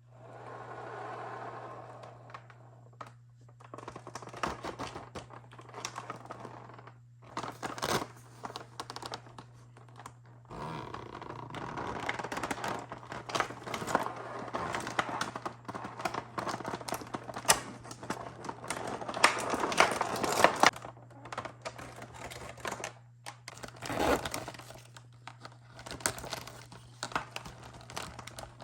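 Packaging being handled during a toy unboxing: crinkling and tearing, with many small clicks and knocks, over a steady low hum.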